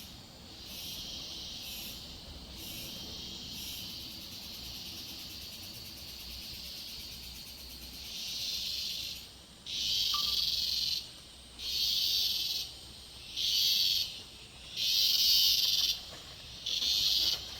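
Rainforest insects buzzing: a steady high buzz, then, about halfway through, a louder buzzing that comes in bursts of about a second each with short gaps between them.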